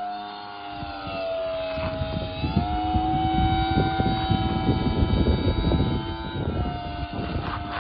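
Electric RC plane's brushless motor and 12x7 propeller whining in flight, the whine shifting in pitch and growing louder through the middle before easing off, as on a low pass. Wind rumbles on the microphone while it is loudest.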